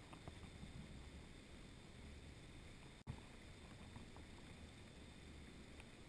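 Near silence: a faint, steady low underwater rumble picked up by a submerged camera, with a brief dropout about halfway through.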